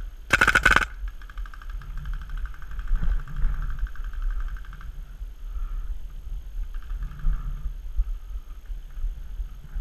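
Smart Parts Ion paintball marker firing a rapid burst of shots about a quarter second in, lasting about half a second. After it comes fainter, rapid popping of paintball markers out on the field for several seconds, fading off in patches.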